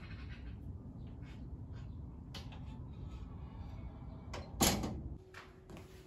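A door shutting with one loud thud about four and a half seconds in, after a few lighter clicks. A faint steady hum follows.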